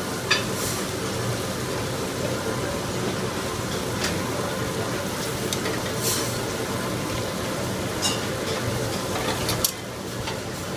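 Steady drone of a commercial kitchen cooking line, with a few light clinks of a utensil against a pan. The drone dips slightly near the end.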